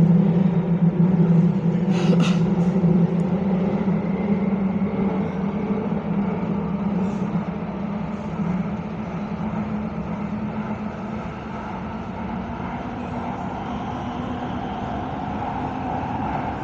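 Copenhagen Metro train running through a tunnel, heard from inside the car: a steady rumble with a low motor hum that slowly gets quieter. A couple of brief high-pitched clicks come about two seconds in.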